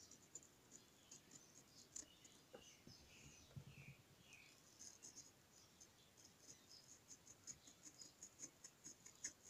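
Faint, crisp ticking and scratching of a small fruit-carving knife slicing through watermelon rind, an irregular run of tiny clicks that grows quicker in the second half.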